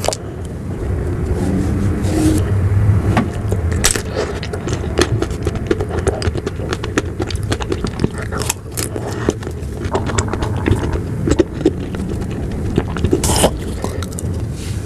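Close-miked sounds of eating ice cream: many small clicks, wet mouth sounds and spoon or container scrapes over a steady low rumble.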